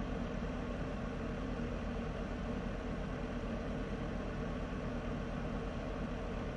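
Heater running steadily: a constant low hum under an even rushing noise, with no change in level.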